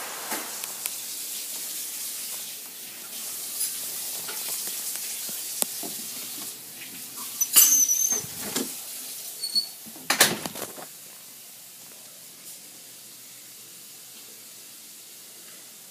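Rustling and knocks from a handheld phone camera being carried, with a short high squeak near the middle and two louder knocks. It goes quieter for the last few seconds.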